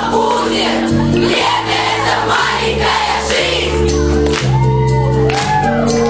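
A large group of children singing together over a backing track with held bass and chord notes, with shouts and whoops rising and falling in pitch from about four and a half seconds in.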